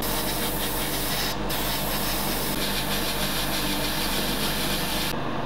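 Airbrush spraying paint: an even hiss that breaks off briefly about a second and a half in, then runs on until it stops near the end.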